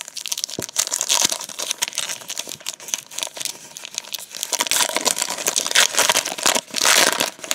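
Foil wrapper of a trading card pack crinkling and tearing as it is pulled open by hand, in irregular crackly flurries that are loudest about a second in and again near the end.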